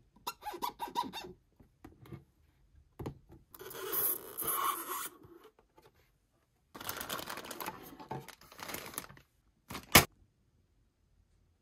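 Toy packaging being handled and opened: scattered clicks and two longer stretches of rustling and scraping. A single sharp click about ten seconds in is the loudest sound.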